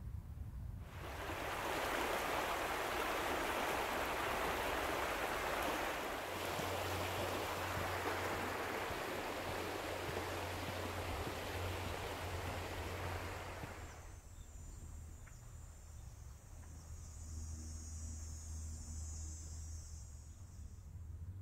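Shallow creek running over a gravel bed: a steady rush of flowing water that cuts off suddenly about two-thirds of the way through.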